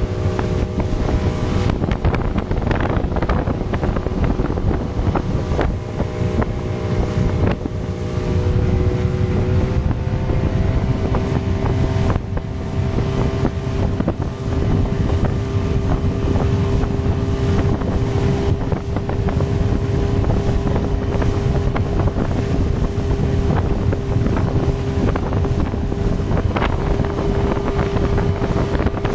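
Mercury outboard motor on a rigid inflatable boat running hard at planing speed, with water rushing and spraying past the hull. Heavy wind buffets the microphone. The engine note shifts slightly about ten seconds in.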